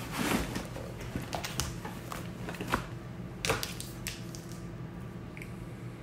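Items being packed into a tote bag: rustling and shuffling, with a few sharp knocks as things are set down, the loudest about three and a half seconds in.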